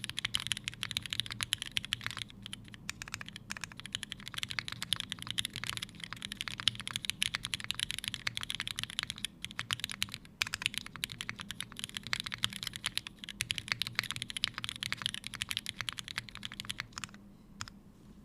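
Fast, continuous typing on a Unikorn r2.1 mechanical keyboard with lubed and filmed Cherry Hyperglide switches on an aluminium plate and GMK keycaps: a dense run of key clacks. The typing stops shortly before the end.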